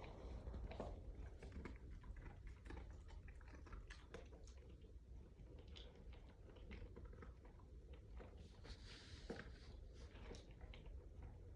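A Rottweiler eating, with irregular chewing and crunching sounds.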